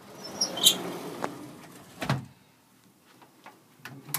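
A door moving with a rush of noise and shutting with a sharp knock about two seconds in, followed by a few light clicks.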